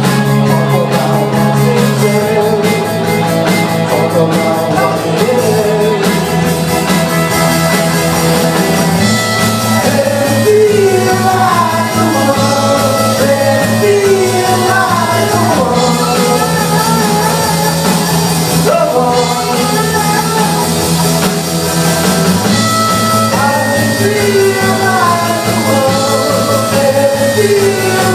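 Live rock band playing a song, with a singer's voice over the band.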